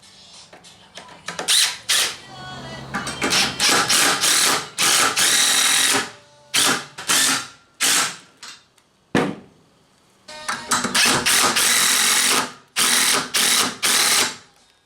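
Impact driver driving screws into the ramp's wood, in a series of short bursts of rattling hammering, some about a second long, each stopping abruptly.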